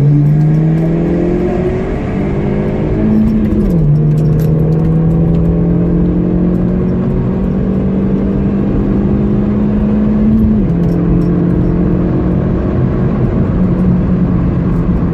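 Four-cylinder engine of an Opel Corsa C GSi 1.8 16v accelerating hard through the gears. The pitch climbs steadily in each gear and drops sharply at upshifts right at the start, about 4 seconds in and about 10 seconds in.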